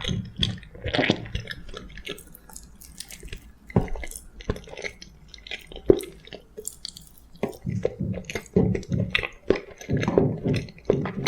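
Close-miked chewing of soft food, boiled sweet potato, with wet, squishy smacking mouth sounds in an irregular run. A couple of sharp clicks stand out, the loudest about six seconds in.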